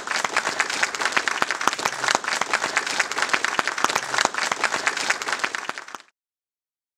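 Audience applauding, a dense, even patter of many hands clapping that cuts off abruptly about six seconds in.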